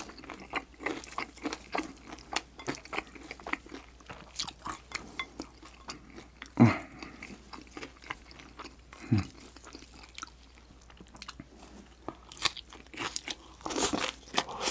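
Close-miked chewing of chewy jjolmyeon noodles, a run of many short wet mouth clicks, growing denser and louder near the end as a bite of green onion kimchi is taken.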